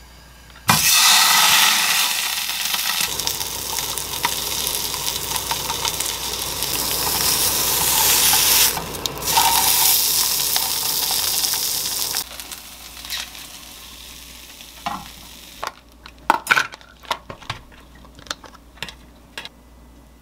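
Mackerel fillet sizzling in hot oil in a frying pan, the loud sizzle starting suddenly about a second in as the fish goes into the pan. It quietens after about twelve seconds, and a run of light clicks and clinks of utensils on a steel tray follows near the end.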